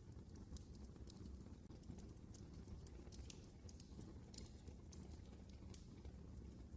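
Wood fire burning in a fireplace, giving faint irregular crackles and pops over a low steady rumble.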